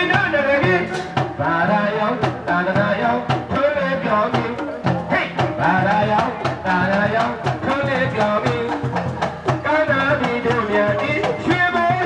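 Live Burmese traditional hsaing waing ensemble playing: a wavering, ornamented melody over barrel-drum strokes and sharp, regularly repeated percussion strikes.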